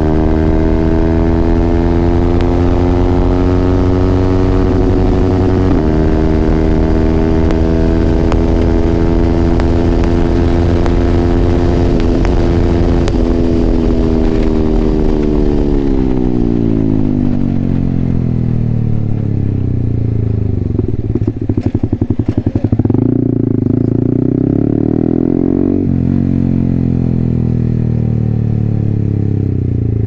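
Yamaha R15M's single-cylinder engine through an SC Project aftermarket exhaust, held at high revs and nearly steady for the first half. The revs then fall steadily as the bike slows, with a brief rapid stuttering from the exhaust about two-thirds through, before it settles into steady low revs.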